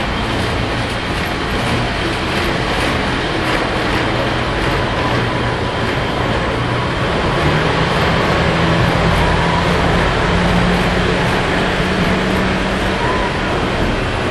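Lionel O gauge model trains running on three-rail metal track: a steady rumble of wheels with the hum of the locomotive motors. The hum steps up in pitch about seven seconds in.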